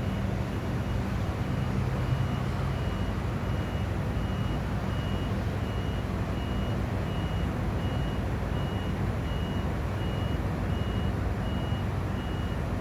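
A crane's warning beeper sounding non-stop while the crane stands idle. It gives an even run of short, high-pitched beeps, about three every two seconds, over a steady low rumble.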